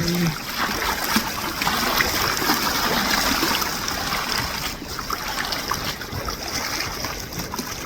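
Water splashing and trickling steadily, with many small splashes.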